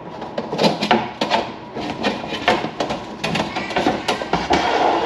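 Irregular knocks, clunks and scrapes of a fiber-drum dust bin being worked loose from under a cyclone separator and pulled out.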